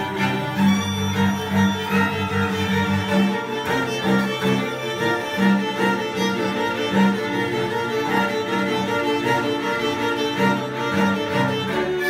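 String quartet of two violins, viola and cello playing live, with sustained bowed notes. The lowest part drops out about three seconds in and comes back near the end.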